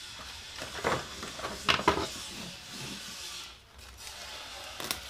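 A cardboard MacBook Pro box being handled on a tabletop: a few short rubs and knocks about a second in and again near the end.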